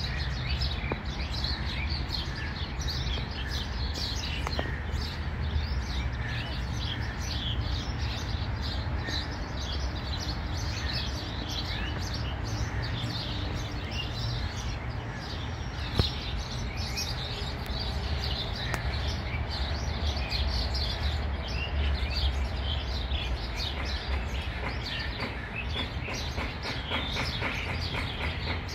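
Many wild birds chirping and calling at once in quick, overlapping short notes, over a steady low rumble. A single sharp click about halfway through.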